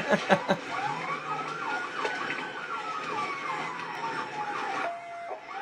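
Police sirens during a pursuit: a slow wail rising and then falling over about four seconds, with a faster siren sweeping up and down a few times a second over it. A new wail starts near the end.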